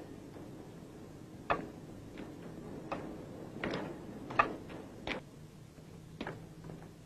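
Footsteps on a hard street: short sharp clicks, one roughly every three quarters of a second, with a steady walking pace.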